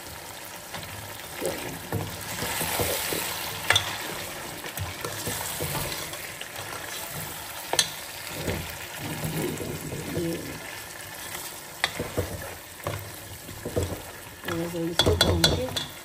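Food sizzling in hot oil in a cooking pot as it is stirred with a spoon, the spoon clinking sharply against the pot several times.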